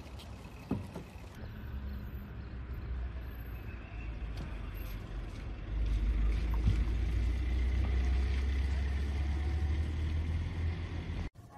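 Outdoor street ambience with a steady low rumble, which grows louder about six seconds in and cuts off abruptly just before the end.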